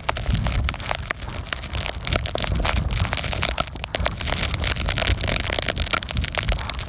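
Sleet hitting a phone's case: a dense, rapid, irregular crackle of small ticks. Under it is a low rumble of wind on the microphone.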